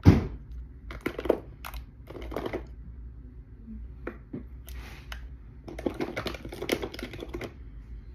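Small hard objects clicking and clattering as they are handled and rummaged through, in irregular bursts, with a sharp knock right at the start and a busier run of clicks near the end.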